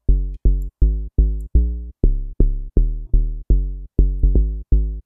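FM-style deep house synth bass from the Serum synthesizer, built from its oscillators plus an FM bass sample in the noise section, playing a looped pattern of short low notes. About three notes a second, each starting sharply and dying away quickly, with its envelope set to a short decay.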